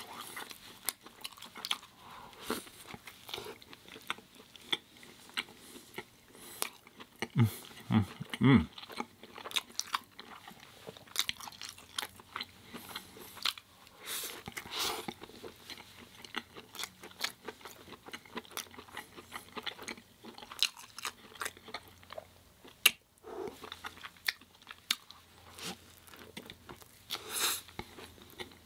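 Close-miked eating: a person biting into and chewing a plant-based mushroom burger, with irregular wet mouth clicks and soft crunches.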